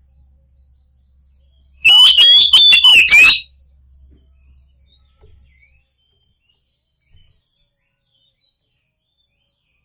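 Oriental magpie-robin (kacer) giving a loud, harsh burst of rapid whistled and scratchy song for about a second and a half, starting about two seconds in, followed by a couple of faint chirps.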